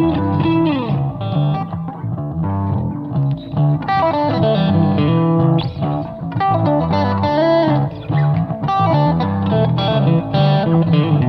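Instrumental music led by an electric guitar over a bass line, with a falling glide in pitch about a second in and quick runs of notes.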